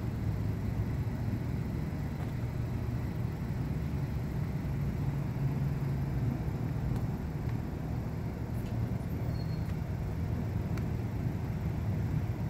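Steady low rumble of an idling vehicle engine, running evenly without change.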